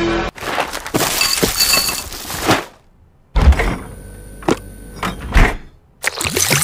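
Kitchen sound effects for a stop-motion animation: a run of knocks and clattering with two short silent breaks, then a rustling hiss near the end as cereal is poured from a box into a bowl.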